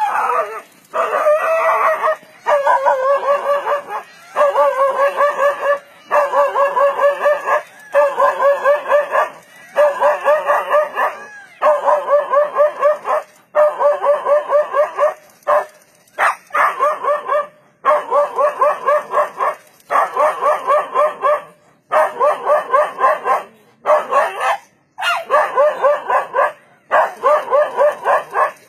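A dog barking loudly and rapidly at a leopard, in volleys of quick barks about every two seconds with short pauses between: defensive barking that holds off the attacking leopard.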